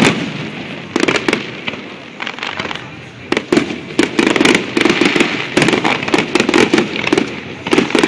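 Aerial fireworks exploding: a few separate loud bangs in the first seconds, then from about three and a half seconds a dense, rapid barrage of bangs and crackling.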